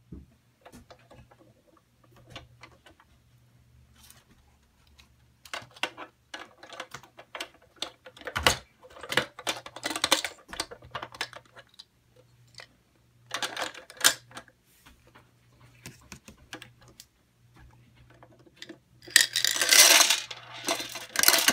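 Hard plastic toy parts clicking and rattling as a toy recycling bin is worked on the lifter of a Playmobil toy recycling truck, with a burst of small plastic pieces clattering into the truck's compartment about nineteen seconds in, the loudest sound.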